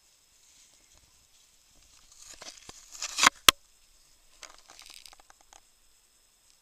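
Dry leaf litter and twigs rustling and crackling as they are disturbed, building to two sharp snaps a little past three seconds in, then a few softer rustles.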